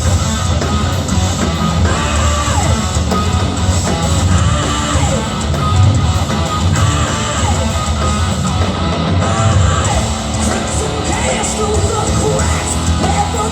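Live hard rock band playing loudly, with electric guitar to the fore over bass and drums.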